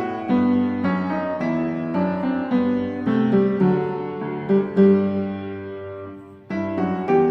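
Background piano music, a gentle melody in separate notes; it fades out a little after six seconds in and starts again straight away.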